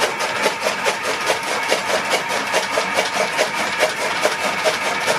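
Chaff cutter running and chopping green fodder stalks as they are fed in, its blades cutting in a fast, even rhythm of about five strokes a second over a steady machine hum.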